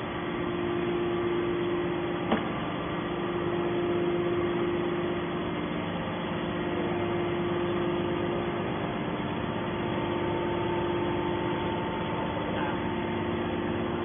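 Hydraulic power unit of a scrap metal baler running steadily: an even motor-and-pump hum with a few held tones. A single sharp click sounds about two seconds in.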